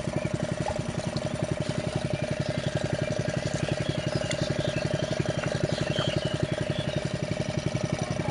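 Small engine-driven water pump running steadily to drain a pond, with an even, rapid firing pulse.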